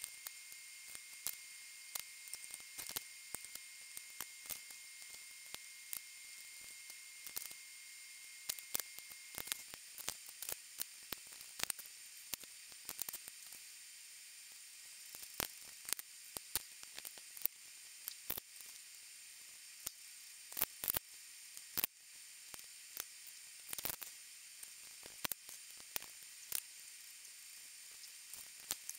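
Faint steady hiss with many small, sharp clicks and ticks at irregular intervals. A faint steady high tone sounds through the first ten seconds or so.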